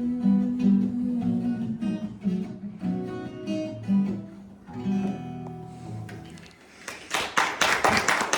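Acoustic guitar playing a closing instrumental phrase of plucked and strummed notes that fade out, then audience applause breaking out about seven seconds in.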